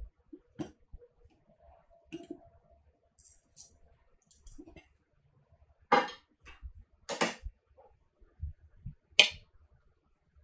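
Scattered clinks and knocks of metal tongs against a ceramic plate as pieces of cooked pork are set down, and a small ceramic sauce bowl is put on the plate. The sharpest knocks come about six, seven and nine seconds in.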